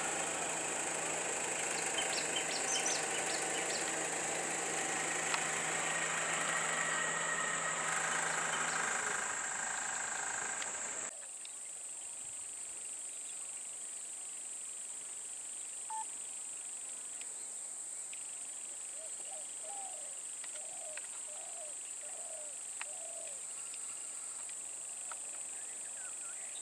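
A stopped bus's engine idling with a steady hum that fades out about nine seconds in, over road ambience. The sound cuts off abruptly about eleven seconds in to quieter outdoor ambience with a steady high hiss. Near the end a bird gives a run of five short calls.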